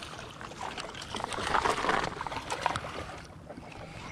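Water splashing and sloshing as a hooked fish thrashes at the surface beside the bulkhead, with scattered clicks and knocks. The splashing is loudest about halfway through and dies down near the end.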